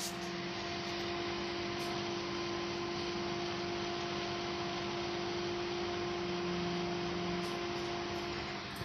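Cooling fans of a desktop PC fitted with an EVGA GeForce GTX 1070 graphics card, running steadily with an even rushing noise and a constant hum. The hum drops away near the end.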